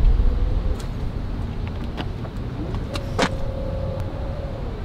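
Power tailgate of a Mercedes-AMG GLE 63 S coupé opening, its electric motor giving a steady whine. A short whine comes at the start, then a longer one glides up in pitch about three seconds in and holds until near the end, with a sharp click as it begins.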